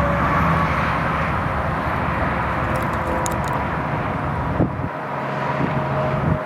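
An engine running steadily with a low hum, which falls away about five seconds in.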